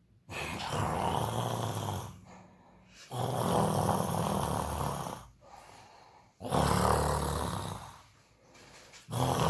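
A person snoring: three long snores of about two seconds each, about a second apart, with a fourth starting near the end.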